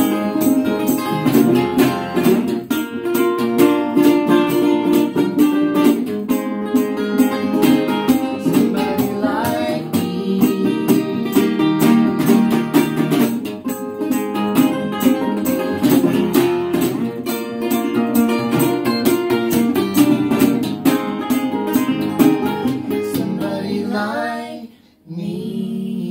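Two National resonator guitars played together, dense picked notes over a rhythm part. Near the end comes a slide up in pitch and a sudden break, then a held final note.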